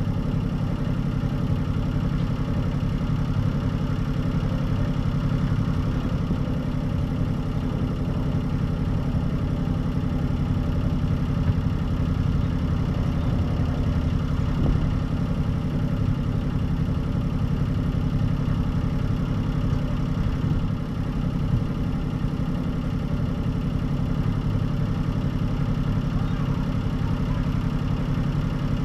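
Hunter 36 sailboat's inboard diesel engine running steadily at low throttle, a constant low hum.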